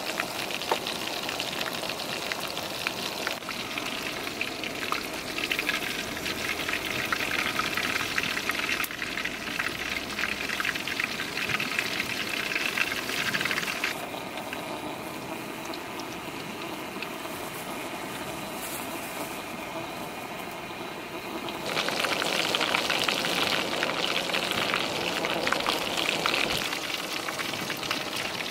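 Chicken deep-frying in hot oil in an aluminium mess tin over a gas stove, with the flame turned up: a dense, crackling sizzle. It drops quieter about halfway through and grows louder again a few seconds later.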